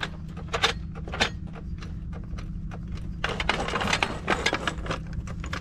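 Hydraulic floor jack being positioned and pumped under a bulldozer's belly pan: irregular metal clicks and knocks, with a stretch of scraping about three seconds in, over a steady low hum.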